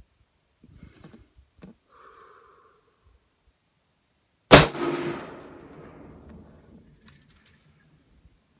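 A single rifle shot from a Smith & Wesson M&P 10 semi-automatic rifle firing Federal Fusion 165 grain ammunition. The shot is a sharp crack about halfway through, echoing away over about two seconds. Faint clicks come before it, and faint metallic tinkling follows a couple of seconds after.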